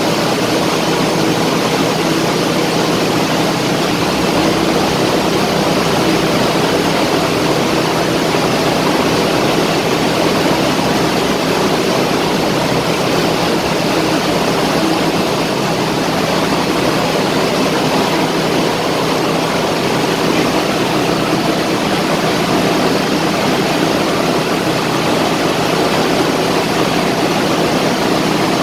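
Steady, loud machinery noise of a tanker's engine room: a constant drone with a low hum, unchanging throughout.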